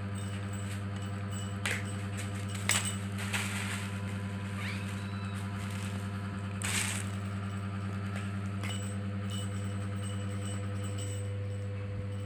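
A steady low hum throughout, with a few scattered plastic clicks and a brief crinkle as a kitten paws at a plastic ball-track cat toy on a plastic sheet.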